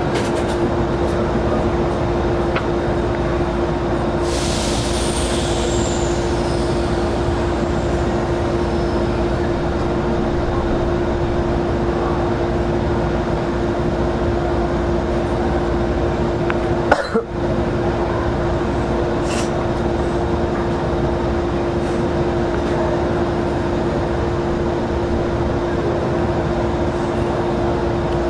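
Semboku 7020-series electric train running between stations, heard from on board: a steady rumble of wheels on rail with a steady hum. A high whine falls in pitch a few seconds in, and a single sharp knock comes about two-thirds of the way through.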